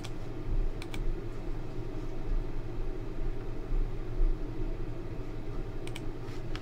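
Clicking at a computer: a short cluster of clicks about a second in and another near the end, over a steady low hum.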